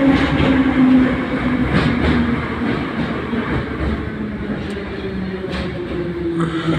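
Soviet-type 81-717/714 metro train heard from inside the car while slowing on the approach to a station: the traction motors' whine falls steadily in pitch over rumbling wheel and track noise, with a few sharp clicks from the rails.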